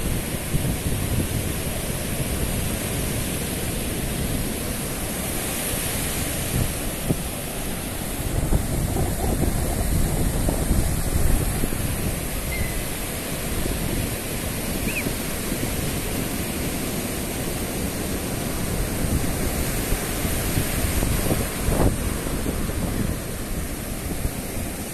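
Surf breaking and washing up a sandy beach in a steady rush of noise, swelling now and then as waves come in, with wind buffeting the microphone in a low rumble.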